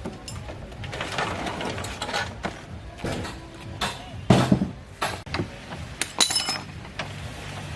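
Irregular metallic clinks and knocks of hand tools on car parts, with a heavier knock about four seconds in.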